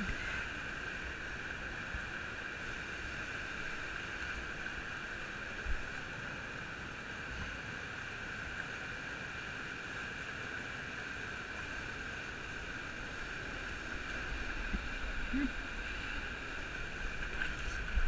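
Waterfall and fast stream water rushing over rocks around the waders: a steady rush of water with no let-up, and one short bump about six seconds in.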